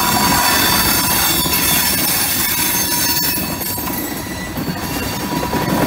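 Loaded covered hopper cars rolling slowly past on jointed track: a steady rumble of steel wheels on rail, with a steady high-pitched squeal from the wheels and a few light clicks.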